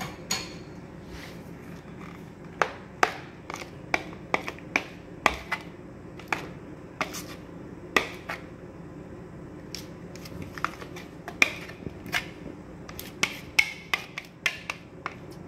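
Kitchen utensil clinking and scraping against a bowl and pan as thick cheesecake filling is scooped and spread: irregular sharp taps throughout, over a faint steady hum.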